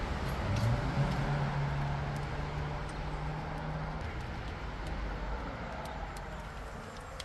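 A low engine hum rises briefly in pitch about half a second in, holds steady for about three seconds, then fades, over a steady hiss.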